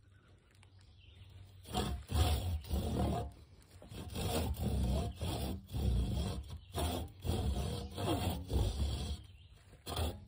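Worm fiddling: a wooden stake driven into the ground is rubbed across its top, giving a series of low, rasping groans about every half second from about two seconds in, with a short break partway through.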